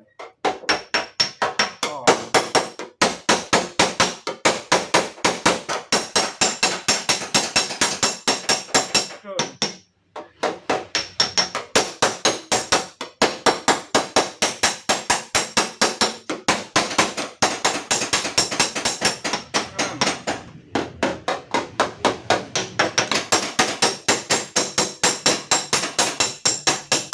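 Hammer striking the steel door panel of a Toyota Calya in quick, even runs of about three to four blows a second, with a few short pauses: panel beating to work out a deep, creased dent.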